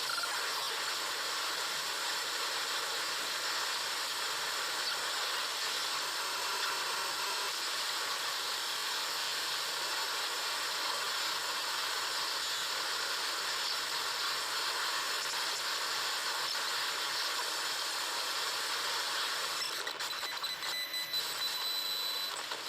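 Raw binary data of the Google Chrome program played back as audio: a steady harsh hiss with faint fixed tones running through it, turning choppy with clicks and short tones near the end.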